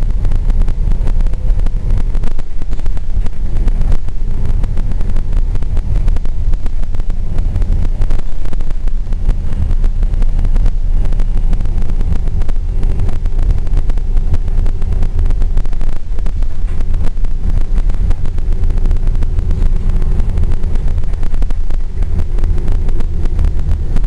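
Gillig transit bus running along a street, heard from inside the cabin: a steady, loud low rumble of engine and road noise, with air rushing against the microphone.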